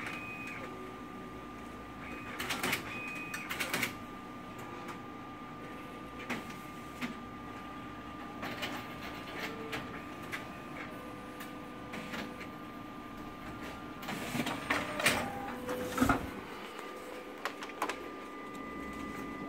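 Sharp MX-series copier with a booklet finisher, running with a steady hum while it makes A5 booklets. Three bursts of mechanical clicking and clunking come a few seconds apart as the finisher handles the sheets.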